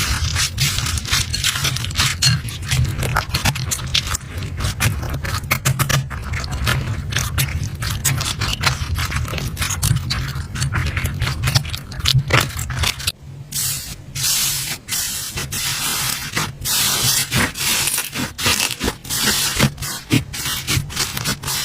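Slime being handled close to the microphone: a dense, continuous run of crackling clicks and scraping, with a low rumble of handling underneath. The clicks briefly let up about thirteen seconds in.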